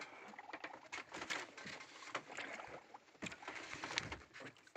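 Sea water lapping and splashing against the side of a small fishing boat, with scattered light knocks and clicks.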